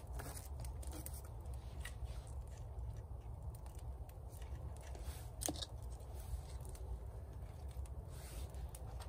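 Scattered small snaps and crackles of dry birch twigs, with one sharper crack about five and a half seconds in, over a low steady rumble.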